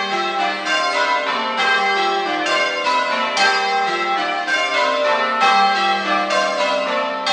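Church bells ringing changes: a set of tower bells struck one after another in quick rotation, each tone ringing on and overlapping the next.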